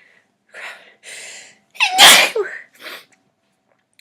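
A woman sneezes once, loudly, about two seconds in, the voiced part of the sneeze dropping in pitch; short breathy sounds come before it and a brief breath after. She has been sneezing all day and thinks she is coming down with an illness rather than allergies.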